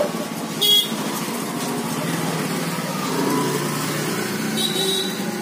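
A motor vehicle's engine running steadily, with a sharp click a little under a second in and a short high-pitched tone near the end.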